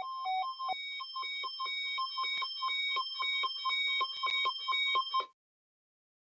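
NOAA Weather Radio warning alarm tone near 1 kHz, sounded as a required weekly test. It pulses about four times a second with short stepping beeps at higher pitches, and cuts off sharply about five seconds in.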